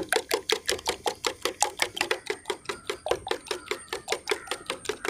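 Wire whisk beating raw eggs in a stainless steel bowl, its wires clicking against the metal side in a fast, even rhythm of several strokes a second.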